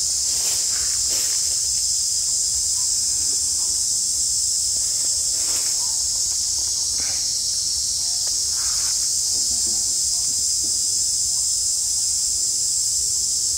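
Insects droning in a steady, high-pitched chorus, with a few faint brief sounds scattered through it.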